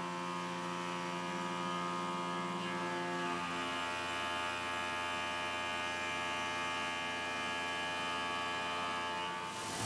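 Tormach PCNC 770 mill's spindle and indexable Shear Hog cutter roughing the outside wall of an aluminum block at 6,500 RPM: a steady whine made of several tones, the cutter's chatter damped by a rubber hockey puck on the part. The mix of tones changes about three and a half seconds in as the cut moves along the wall.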